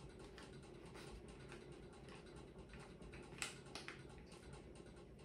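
Faint ticks and scrapes of a utensil breaking crumbly goat cheese out of its tub into a bowl of beets, with a couple of louder clicks about three and a half seconds in.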